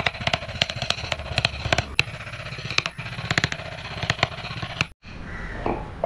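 Carving chisel driven into wood by light mallet taps: a quick, irregular run of sharp knocks, several a second, breaking off briefly about five seconds in.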